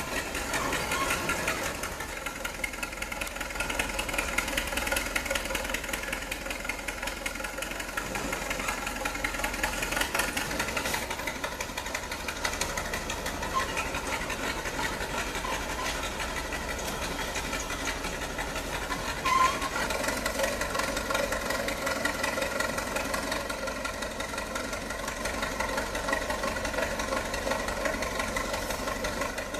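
Heavy-equipment engine running steadily, with a brief sharp blip about two-thirds of the way through.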